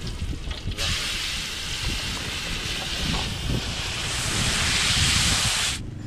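Red chili spice paste sizzling in a hot wok as a liquid is poured in: a loud hiss that starts suddenly, grows louder over its second half and cuts off abruptly near the end.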